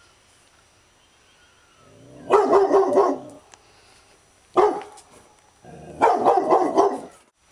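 Labrador barking in defence of its territory: a quick run of barks about two seconds in, a single bark midway, then another run of barks near the end.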